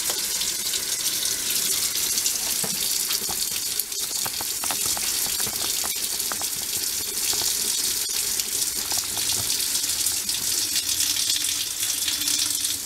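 Water running steadily from an open tap fed by an electric tankless water heater, with the heater switched on and heating the flow.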